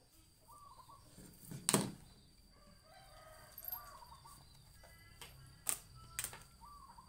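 Chickens calling a few times, short calls of several notes that fit a rooster crowing and hens clucking, over a faint steady high tone. A few sharp knocks come in between, the loudest about two seconds in.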